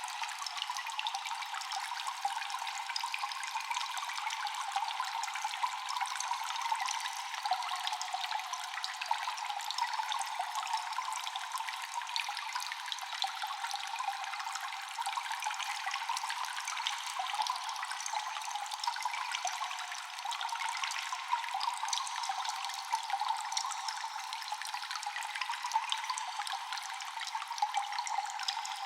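Water dripping and trickling steadily in a cave, with many small drops falling over a constant wash of running water.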